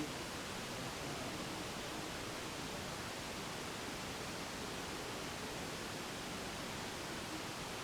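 Steady, even hiss of a recording turned up high in a quiet room, with no distinct knock, creak or ring standing out.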